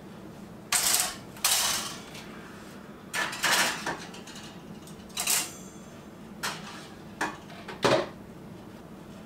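Metal muffin tins clanking and scraping against a small countertop June oven's rack and walls as they are worked in, a snug fit: a run of short clatters with pauses between.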